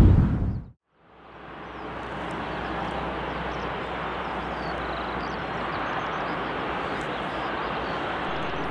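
Jet aircraft engine noise. A louder stretch fades out within the first second and cuts to a brief silence. Then a steady rushing engine sound fades in and holds.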